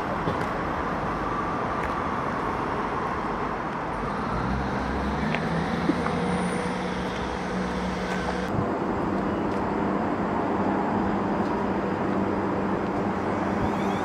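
Class 158 diesel multiple unit pulling away, its diesel engine note settling into a steady low drone about four seconds in, with a couple of sharp clicks from the wheels over the track.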